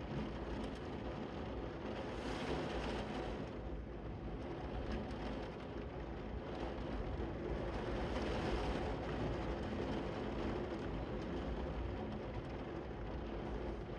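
Heavy rain falling steadily, heard from indoors through a window pane: an even rushing noise with a low rumble underneath.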